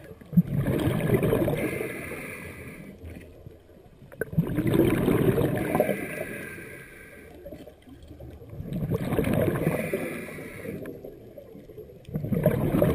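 A scuba diver breathing through a regulator underwater: a quieter hiss on each inhale, then a few seconds of loud bubbling as the exhaled air vents, repeating about every four seconds. One sharp click about half a second in.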